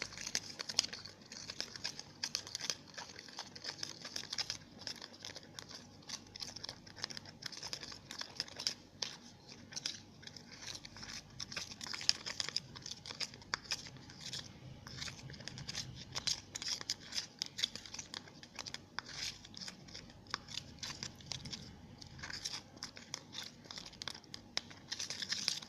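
Slime mixture of glue and liquid soap being stirred in a small container: a steady run of small sticky clicks and crackles.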